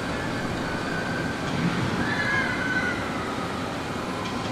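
Wind buffeting the microphone as a steady, rough rumble, with a few faint distant tones, one sliding down in pitch about two seconds in.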